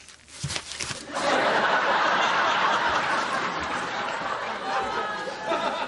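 Studio audience laughing. It starts about a second in and holds as a steady wave of laughter to the end.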